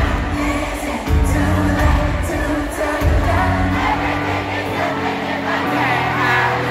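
Live pop band music with singing, played loud through an arena sound system and recorded from the stands, with held bass notes changing every second or two and a faint crowd underneath.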